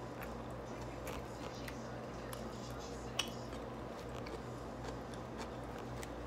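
Close-up eating sounds: a person chewing and taking bites, with scattered small clicks of a plastic fork in a paper takeout bowl and one sharper click about three seconds in, over a steady low hum.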